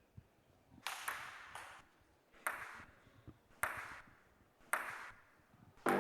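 A run of about six sharp pings, unevenly spaced, each ringing out briefly, played as sound effects over the venue's speakers; music starts right at the end.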